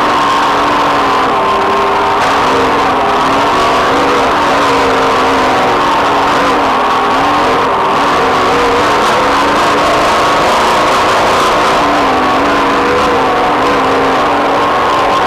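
Off-road race vehicle's engine running hard on a dirt road, its pitch rising and falling with the throttle. It sits over a steady rush of wind and tyre-on-gravel noise at the onboard camera.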